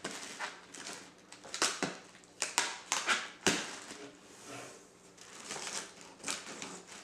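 Cardboard shipping box being opened: a box cutter slicing along the packing tape, with irregular crackles and scrapes of tape, cardboard and plastic packing.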